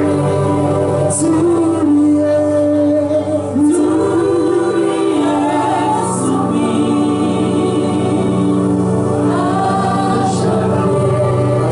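Gospel worship song: voices sing long, held notes over a steady low accompaniment.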